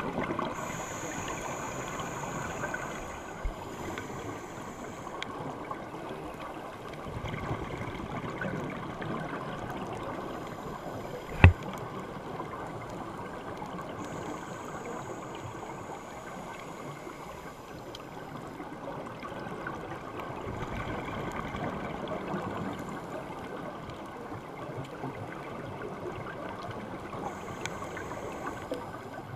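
Underwater sound picked up on a diver's camera: a steady gurgling wash of scuba exhaust bubbles, with a high hiss of the regulator's inhalation coming and going every several seconds. One sharp click sounds about eleven seconds in.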